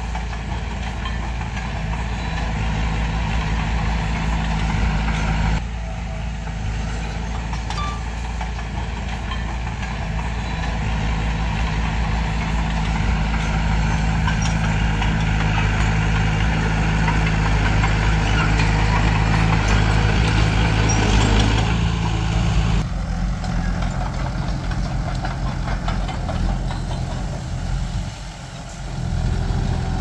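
Diesel engine of heavy earthmoving equipment running steadily at an even pitch, its sound changing abruptly twice, about a fifth of the way in and again past two-thirds, with a short dip near the end.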